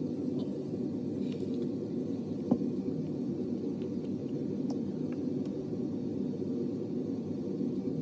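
Steady low rumbling background noise, with a few faint clicks and one sharper click about two and a half seconds in as a lip gloss tube and wand are handled.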